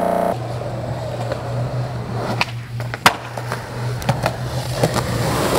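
Skateboard wheels rolling on pavement over a steady low hum, with several sharp clacks of the board hitting the ground. The loudest clack comes about three seconds in.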